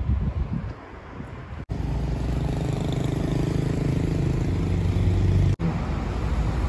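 City road traffic: passing car engines and tyre noise, a steady low rumble that cuts off abruptly twice where shots are joined.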